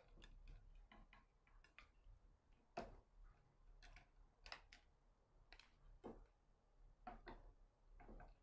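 Faint, irregular light clicks and taps of a wooden spoon stirring blanched bitter melon slices in a wire strainer set in a bowl of cold water.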